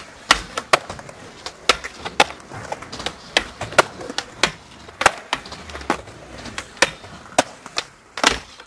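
Skateboard tail pops and deck landings on concrete: sharp, separate cracks and clacks at an uneven pace, roughly two a second.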